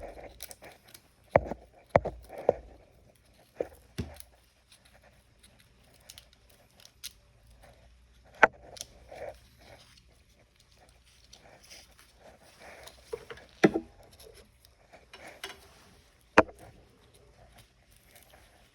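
Repair tools clicking and scraping against an iPhone 16 as its glued-down screen is pried off: a handful of sharp clicks a few seconds apart, with faint scraping between.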